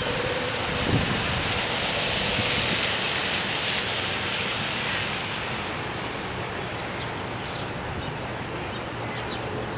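Floodwater rushing steadily, with wind buffeting the microphone, and a brief low bump about a second in.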